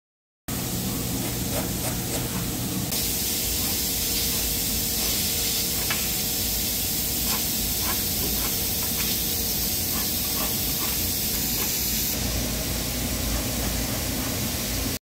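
Steady, loud hiss with faint light taps and clicks scattered through it from the dowel work on the plywood panel.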